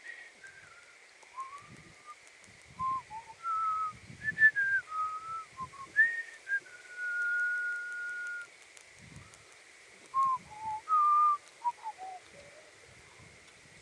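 A person whistling a tune close by: a string of clear notes stepping up and down, one held for about two seconds midway, and a falling run of notes near the end.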